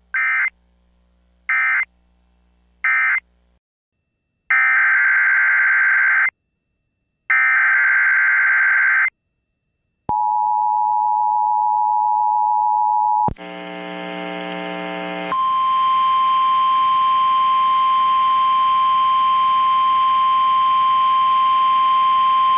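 Emergency Alert System broadcast tones. First come three short end-of-message data bursts, then two longer data bursts of the next alert's header, which sound as harsh screeching chirps. About ten seconds in there is a two-pitch attention tone for about three seconds, then a short buzzy tone, and then a long steady single-pitch alert tone.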